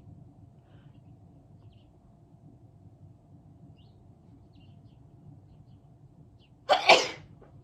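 A single loud human sneeze near the end, after several seconds of quiet room noise with a faint steady hum.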